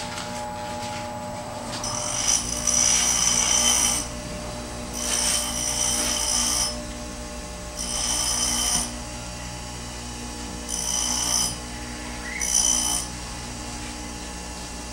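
A small grinding wheel running with a steady hum, while a steel drill bit is pressed against it in five short grinding passes, each a loud hiss that stops as the bit is lifted off. This is the web of a homemade drill bit being thinned at the point.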